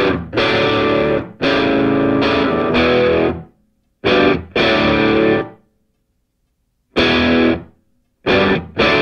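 Background music: a distorted electric guitar playing chopped, stop-start chords that cut off dead several times, with a longer break a little past the middle.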